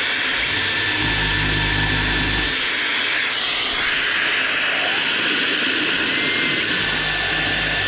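A power drill boring into plywood twice, each run about two seconds, one starting about half a second in and the other near the end. A dust extractor hisses steadily throughout, drawing the chips away through a suction pad around the bit.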